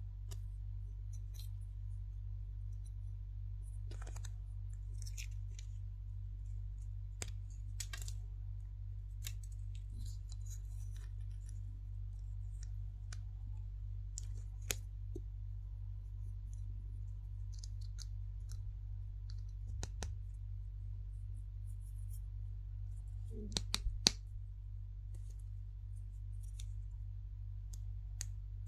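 Scattered small clicks and light crinkles of a surprise egg's plastic capsule and toy being handled, with a quick cluster of sharper clicks near the end. A steady low electrical hum runs underneath.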